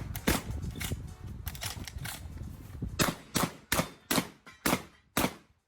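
Shotgun fired in rapid succession, about a dozen sharp shots. The last six come at an even pace of roughly two a second.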